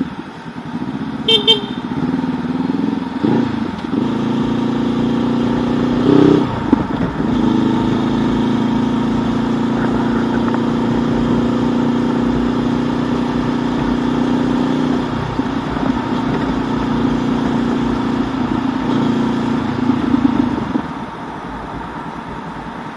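2019 Honda CB500X's parallel-twin engine running through an aftermarket Mivv Suono slip-on exhaust with a loud, heavy note while riding, holding steady under way and easing off near the end. A short high beep sounds about a second in.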